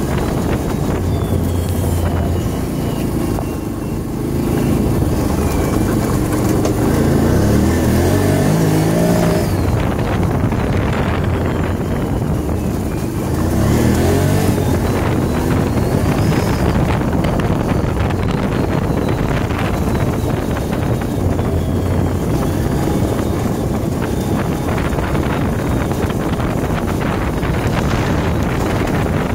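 Can-Am off-road vehicle engine running under way, speeding up twice, around 6 to 9 seconds in and again around 13 to 15 seconds in, with wind buffeting the microphone throughout.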